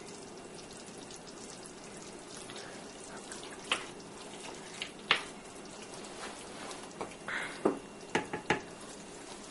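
Wooden spoon stirring chicken curry in a metal sauté pan, with a few short knocks and scrapes of the spoon against the pan, more of them near the end, over a quiet steady sizzle from the hot pan.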